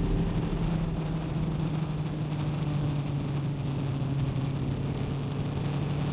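Motorcycle engine running steadily at an even pitch, with a noisy rush over it.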